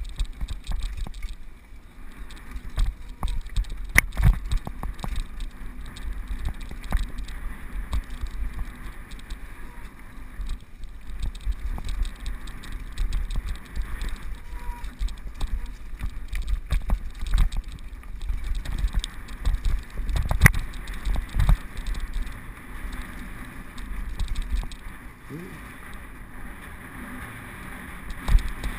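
Mountain bike descending a rocky dirt trail at speed: the bike rattles and its tyres run over loose stones, with a constant low rumble and frequent sharp knocks from hits on rocks, the hardest about four seconds in and again about twenty seconds in.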